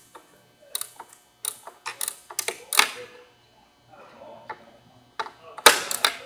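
Irregular sharp plastic-and-metal clicks and clacks as the motor operator on an ABB Tmax T6 circuit breaker is worked by hand, about a dozen in all, in two clusters, the loudest near the end.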